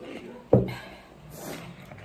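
A single thump about half a second in as a drinking glass is set down on the wooden table, followed by a short breathy hiss.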